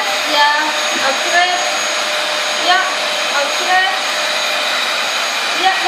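Cyclonic cylinder vacuum cleaner running steadily: an even rushing airflow with a constant high whine. Short, high, squeaky chirps come and go over it.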